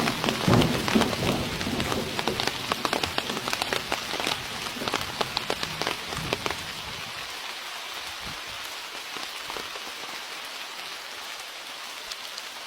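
Heavy rain falling, with many sharp drop ticks close by for the first six seconds or so, then easing to a quieter, even hiss.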